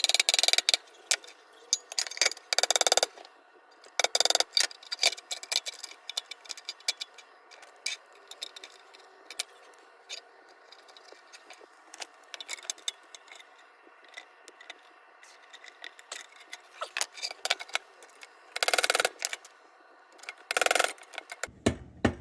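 Small sheet-metal lantern parts clicking, clinking and scraping against each other as they are handled and fitted together during reassembly. The handling is irregular, with a few louder clusters of clatter: at the start, around three and four seconds in, and again near the end.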